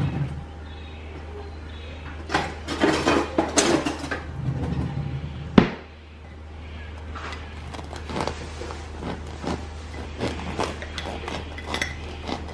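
A knife and ceramic plate clinking on a stone benchtop, with one sharp knock near the middle, then a run of small crackles as a knife saws through the crust of a baked damper roll. A steady low hum sits underneath.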